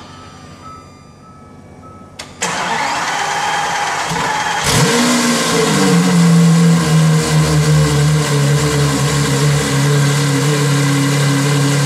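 Lamborghini Aventador LP700-4's V12 cold-started through a newly fitted exhaust with catalytic-converter replacement pipes. The starter spins for about two seconds, then the engine catches, flares up and settles into a steady idle.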